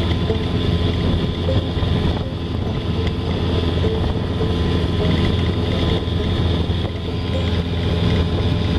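70 hp Evinrude outboard motor running steadily at high speed, pushing a small boat hard across the water, with wind buffeting the microphone and the wake rushing behind. It is being run fast to check that its fuel pump, adjusted by tightening its centre screw, keeps picking up fuel, and it holds speed without faltering.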